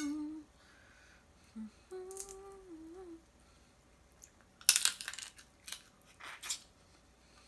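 Cooked snow crab leg shells cracked and snapped apart by hand: one loud sharp crack about five seconds in, then a few smaller snaps. Earlier come two short closed-mouth 'mmm' hums of enjoyment.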